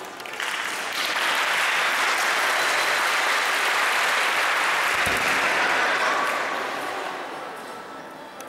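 Audience applauding. The clapping swells about half a second in, holds strong for several seconds, then dies away near the end.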